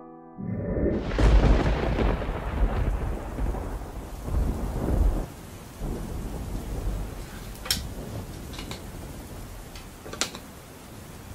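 A long rumble of thunder swells about half a second in and rolls on for around five seconds over steady rain. The rain then carries on alone, with a few light clicks and knocks.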